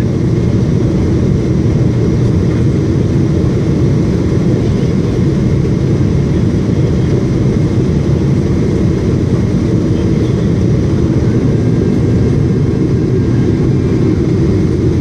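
Steady low rumble of engine and airflow noise inside the cabin of a Boeing 777 during its descent to land, heard from a window seat beside the engine.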